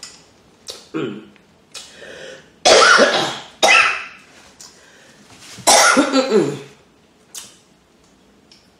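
A woman coughing hard in a series of rough bursts, the loudest about three, four and six seconds in, with smaller coughs or throat-clearing before them.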